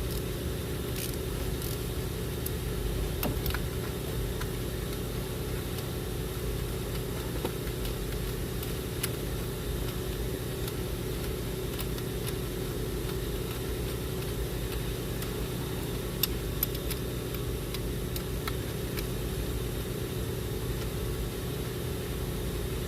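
A steady low mechanical hum, like an idling engine or shop machinery, with a few light clicks of hand tools on metal.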